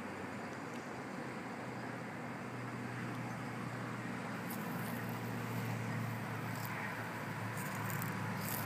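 Steady low mechanical hum over an outdoor background noise bed, growing slightly louder from about two seconds in, with a few short, faint high ticks in the second half.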